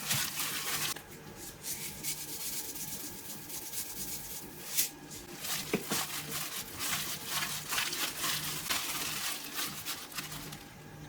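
Irregular rubbing and scraping strokes, with a couple of sharp clicks a little past the middle, over a faint steady low hum.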